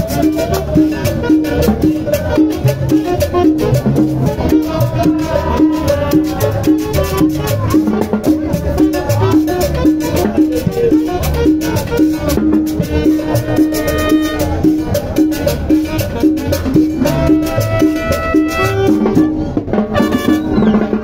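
Latin dance music with a fast, steady beat and a repeating, pulsing bass note.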